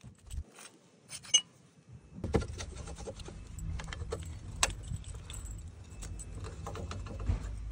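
Metal clinks and clicks from hands working the hydraulic fittings on a snowplow's pump and valve block. A steady low rumble comes in about two seconds in and runs under the clinks.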